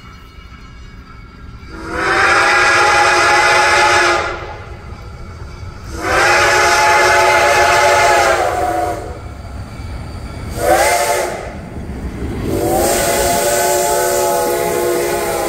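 Reading & Northern T1 2102, a 4-8-4 steam locomotive, sounding its steam whistle in the grade-crossing pattern: long, long, short, and a final long blast held to the end. Beneath the blasts is the steady rumble of the locomotive running past.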